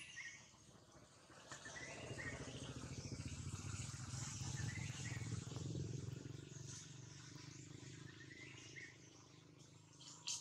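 Quiet outdoor ambience. A low rumble swells from about a second and a half in and fades after about six seconds, with short high chirps every few seconds over a faint steady hiss.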